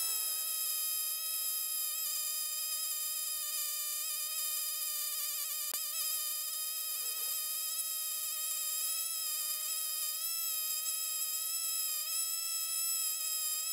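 Champion LM5645 petrol lawn mower running at a steady speed while mowing and mulching, heard as one steady high-pitched whine with a faint wobble. A single sharp click comes about six seconds in.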